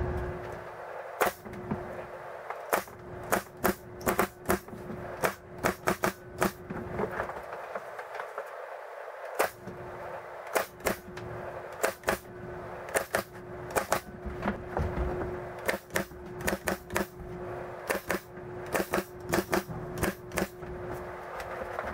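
Pneumatic nail gun firing nails into a wooden frame: sharp shots in irregular runs, often two or three in quick succession, with a pause of about two seconds about a third of the way through.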